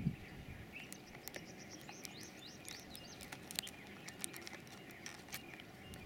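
Faint small birds chirping and twittering again and again, with scattered light clicks and a soft thump right at the start.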